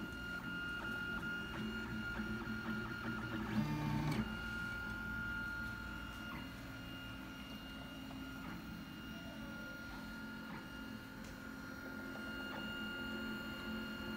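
Prusa i3-style 3D printer running: its stepper motors hum in shifting pitches as the axes move, over a steady high whine. The motor notes are loudest about four seconds in.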